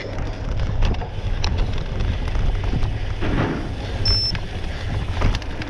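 Wind buffeting the microphone as a steady low rumble, with a few faint clicks and one short high-pitched tone about four seconds in.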